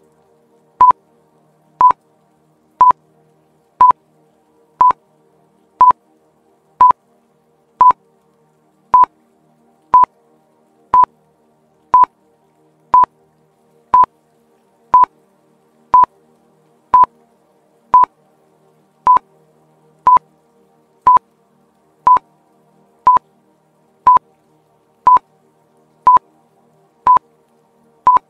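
Quiz countdown timer beeping once a second: a short, even electronic beep each second, over faint background music.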